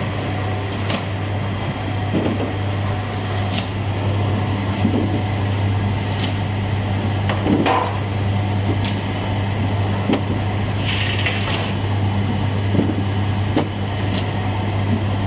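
Electric motor of an automatic onde-forming machine running with a steady hum, with irregular clicks and knocks from its moving parts every second or two.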